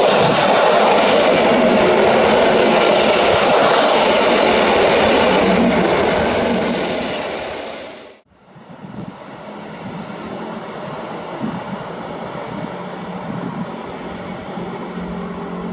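Two coupled EN57AL electric multiple units passing close along the platform: a loud running rush of wheels and coaches that fades as the train draws away and cuts off sharply about eight seconds in. After that there is a much quieter steady rumble with wind noise while another electric train approaches in the distance.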